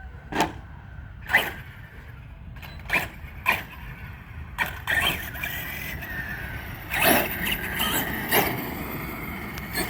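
Radio-controlled monster truck running over rough ground: a string of sharp, irregular knocks and clatters. A thin whine joins in about halfway.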